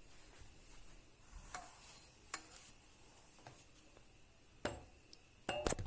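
Light clinks and taps of a cup and kitchenware while milk is poured in over baking soda and butter, a handful of separate ticks, with the loudest a quick cluster of clicks near the end.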